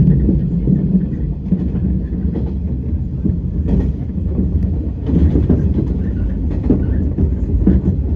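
Electric train running on the track, heard from inside the front cab: a steady low rumble with irregular clacks of the wheels on the rails.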